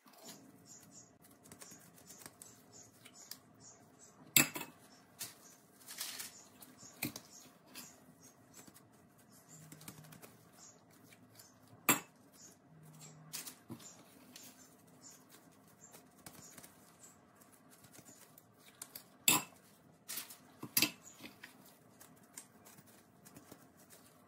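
Stainless steel cookie scoop clinking and clicking against a glass mixing bowl as dough is scooped, with scattered sharp clinks (the loudest about 4, 12 and 19 seconds in) and softer taps in between.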